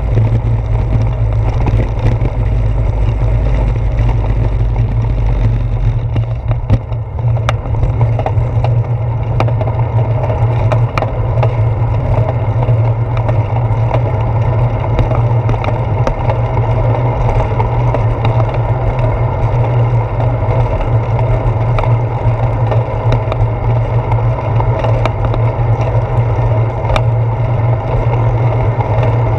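Steady wind buffeting and road rumble of a bicycle rolling along, picked up by a handlebar-mounted action camera's microphone, with scattered small knocks and rattles from bumps. The deep rumble from brick pavers eases about six seconds in as the road turns to smoother asphalt.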